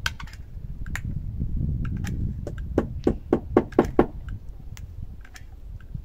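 Hammer driving a nail into a wooden cladding board: a quick run of about six blows, roughly four a second, about halfway through, with a few lighter taps and knocks around it over a low rumble.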